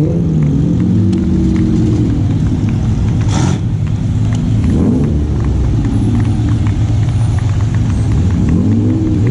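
Race car engines running at low speed with a heavy rumble, revving up and down near the start and again near the end as the cars roll in after the race. A short, sharp noise about three and a half seconds in.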